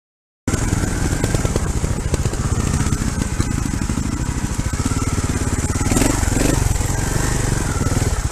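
Trials motorcycle engine running steadily at low revs, heard close up from the bike. It cuts in abruptly about half a second in.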